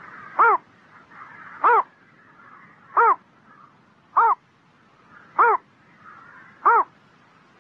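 A small heron calling: six short, sharp calls, each a quick rise-and-fall note, repeated evenly about every 1.2 seconds.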